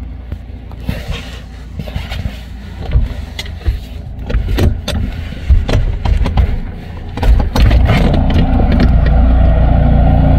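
Air ambulance helicopter running on its pad, a deep low rumble heard from a distance, with irregular gusty knocks on the microphone. From about eight seconds in, the rumble turns loud and steady.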